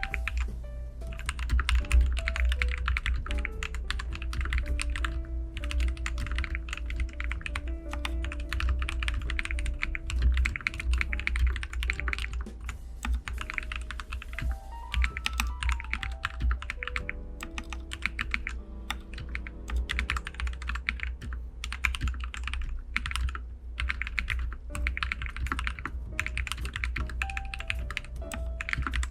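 Fast typing on a Royal Kludge RK100 full-size mechanical keyboard with red (linear) switches: quick runs of keystrokes broken by short pauses. Background music with a steady bass plays underneath.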